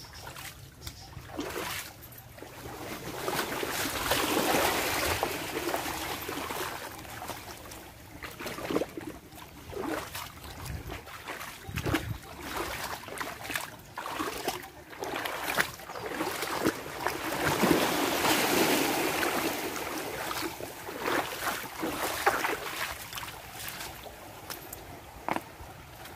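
Small waves washing in and lapping against rocks and gravelly sand at the shoreline. The wash swells louder twice, about a sixth and two-thirds of the way through. Footsteps crunch on the gravelly sand throughout.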